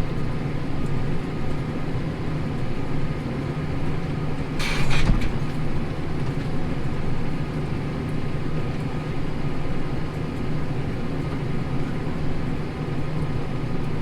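Tractor engine running steadily under load while pulling a plough through wheat stubble, with one brief clatter about five seconds in.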